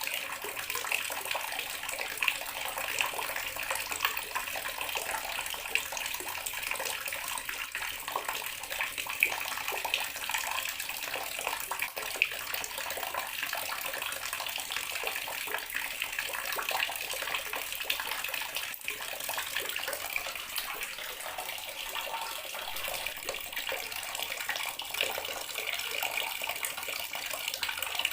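Water running steadily from a bathroom sink tap and splashing into the basin, with a continuous hiss and little spattering splashes.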